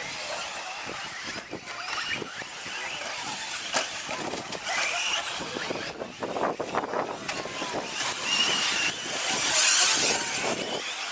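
Electric short course RC trucks racing on a dirt track: brushless motors whining up and down in pitch as the trucks accelerate and brake, over the hiss of tyres on dirt. The hiss swells loudest about nine seconds in.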